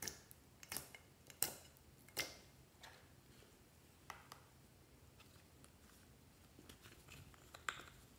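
Fingertips poking into and pulling out of clear slime, giving sharp sticky pops about every three-quarters of a second for the first few seconds. After that come only a few fainter clicks and taps.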